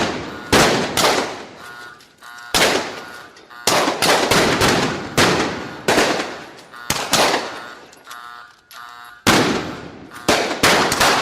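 Gunfight sound effect: gunshots fired singly and in quick clusters of two or three at irregular intervals, each with a long echoing tail.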